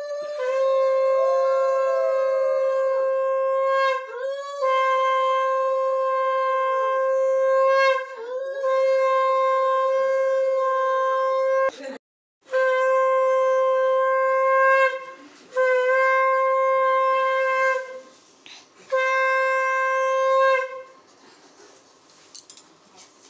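A conch shell (shankha) blown in six long, steady blasts of two to four seconds each, with short breaths between them; the pitch sags briefly as each blast ends. The blowing stops about two seconds before the end.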